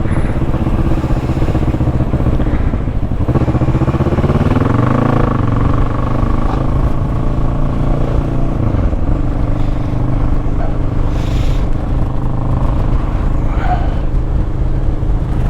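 Motorcycle engine running while riding, heard from on the bike. The revs rise about four seconds in, hold, and fall back about nine seconds in.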